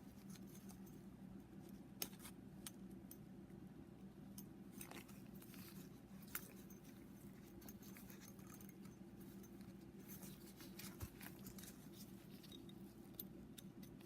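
Near silence over a steady low hum, with a few faint scattered clicks as a piston ring is worked into its groove and turned on the piston by hand.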